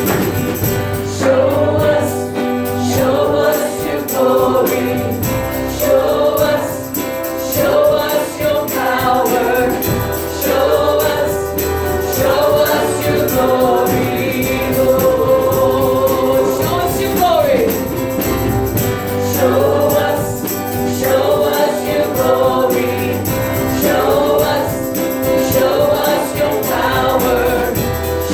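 Worship music: a group of voices singing a contemporary worship song over band accompaniment, continuous and loud.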